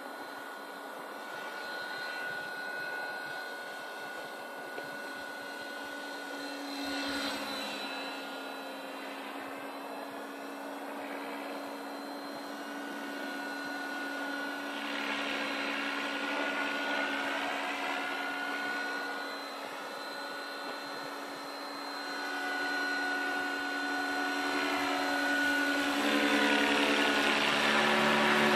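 Align T-Rex 550 DFC electric radio-controlled helicopter in flight: a steady motor-and-rotor whine whose pitch bends up and down as it passes back and forth. It grows louder near the end as it comes closer.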